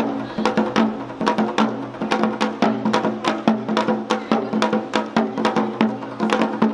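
Two janggu (Korean hourglass drums) played together: sharp, dry cracks of the thin bamboo stick on one head mixed with deeper, ringing strokes on the other, in a quick, unbroken rhythm of several strokes a second.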